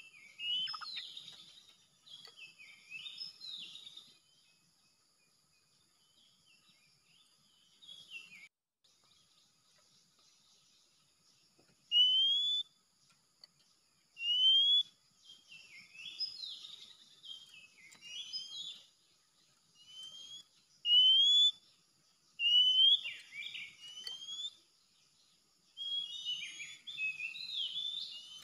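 Oriental magpie-robin singing: loud, clear rising whistles repeated again and again, mixed with shorter varied chattering phrases, in bursts separated by pauses.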